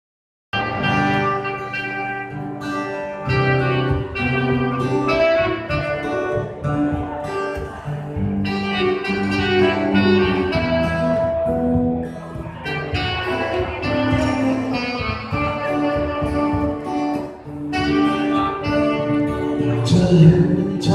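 A band playing the instrumental introduction to a song, led by guitar, with sustained chords over changing low notes.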